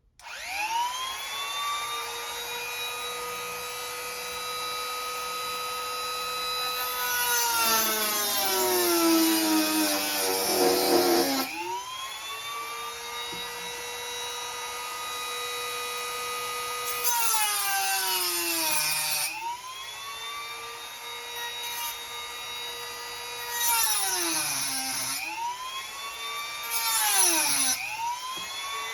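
Dremel rotary tool cutting a slot into a stripped screw head: a high, steady motor whine that spins up at the start and drops in pitch with a grinding rasp each time it is pressed into the screw, hardest about a quarter of the way in, then again a few times near the end. It stops briefly near the middle and spins back up.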